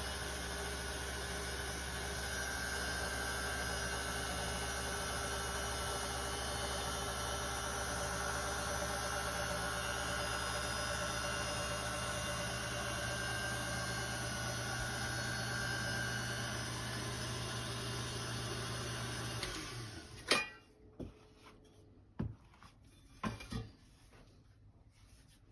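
A small electric motor runs steadily with a hum, then is switched off about twenty seconds in. A few sharp clicks and knocks follow.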